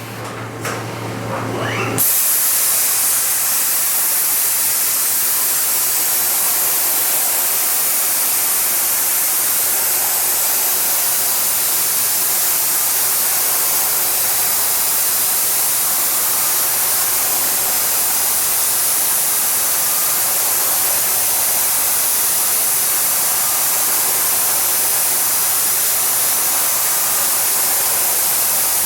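Yama Seiki BM1800 CNC vertical machining center running with a loud, steady hissing spray that sets in abruptly about two seconds in.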